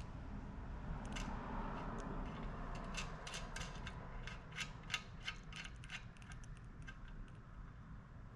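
A run of small, sharp metallic clicks and taps as the parts of a Kanbol air-powered can crusher are handled, while its ram is stuck down and has not retracted.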